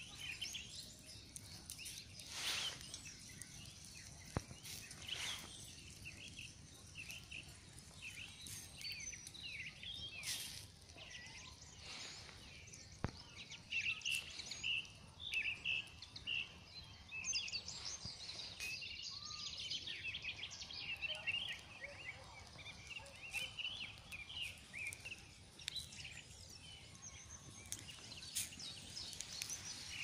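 Small songbirds chirping in many short, quick calls, busiest in the second half. A wood campfire gives a few sharp cracks.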